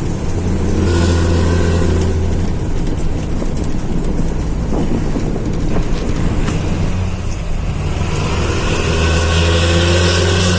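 Bus diesel engine and its deep 'snoring' exhaust running under load. The engine note swells and climbs about a second in, eases off through the middle, then builds and rises again near the end, as the bus accelerates.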